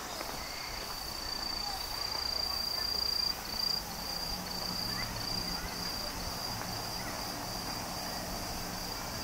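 An insect singing a high, steady trill that about three seconds in breaks into regular pulses, two or three a second, over a faint low hum.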